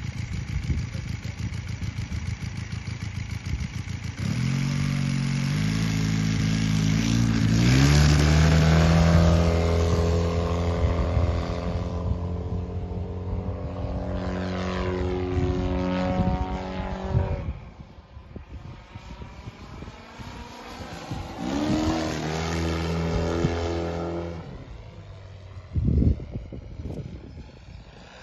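Valach 170 petrol engine of a large-scale radio-controlled Piper J3 Clipped Wing model with its propeller: running low on the grass, then opened up in steps about four seconds in to a loud, steady full-power run for take-off. In the air its pitch falls away, rises again in a second pass and drops off, with a short loud burst near the end.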